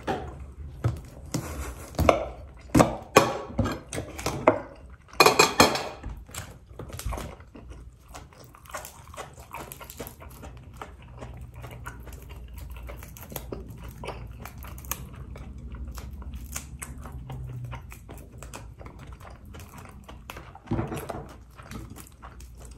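Dishes and cutlery clattering during a meal: a run of sharp clinks and knocks over the first six seconds or so, then quieter scattered ticks over a low steady hum.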